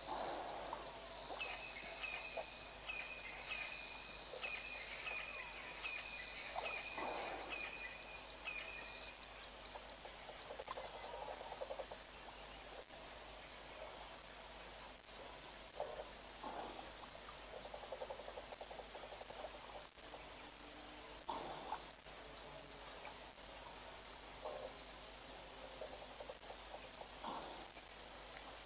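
Insects chirping in a steady, regular high-pitched pulse, a little under two pulses a second, with no break.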